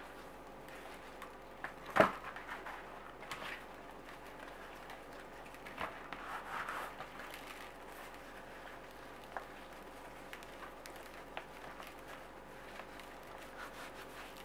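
Quiet handling of whole eggplants as they are picked up and set down on a plastic tray: one sharp knock about two seconds in, then a few soft taps and a brief rustle, over a faint steady hum.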